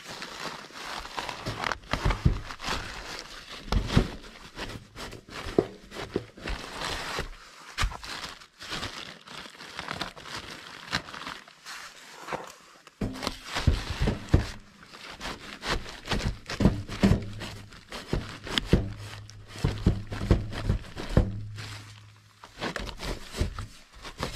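Irregular rustling and crinkling broken by many sharp knocks and thuds, as of hands-on work with materials; a low steady hum runs under it for several seconds in the second half.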